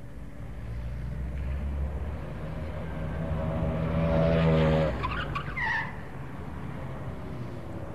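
Car engine running and growing louder, then stopping about five seconds in, followed by a short falling squeal and a faint steady hum of traffic.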